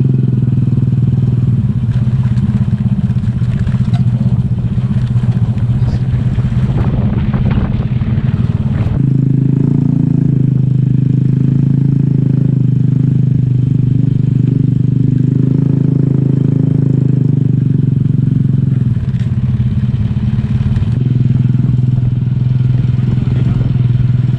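Motorcycle engine running while the bike is ridden along a rough rural track, heard from the rider's seat. The engine note is rougher for the first several seconds and becomes steadier and stronger from about nine seconds in.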